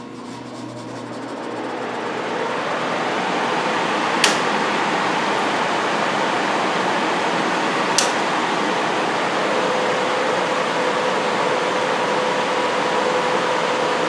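Furnace blower motor spinning up to a steady rush of air over the first few seconds, then two sharp clicks about four seconds apart as circuit breakers are switched on to power the electric heating elements. A faint steady hum comes in shortly after the second click.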